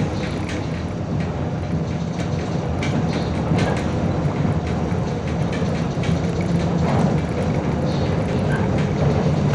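Interior sound of a 2007 MAZ 105.065 articulated city bus on the move: the engine running under a steady low hum with road noise, and frequent short rattles and clicks from the body and fittings. The sound grows slightly louder toward the end.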